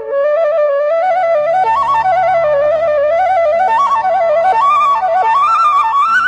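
Background music: a flute plays a winding, ornamented melody that slides between notes. A steady low drone comes in under it about a second in.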